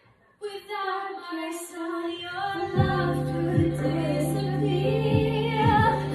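A young girl singing a pop song, likely along to a backing track. After a brief pause at the start her voice comes back in, and a steady bass line with a beat joins about halfway through.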